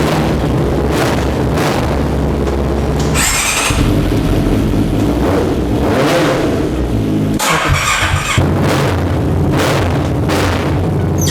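Big-displacement motorcycle engines running and being revved with repeated throttle blips, with abrupt changes about three seconds in and again past halfway, as one bike follows another.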